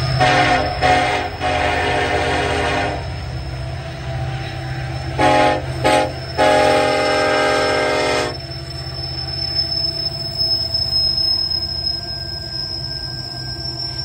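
Union Pacific freight locomotive's horn sounding a chord of several tones in two short blasts and a long one, the pattern played twice, over the steady rumble of the diesel locomotives passing close by.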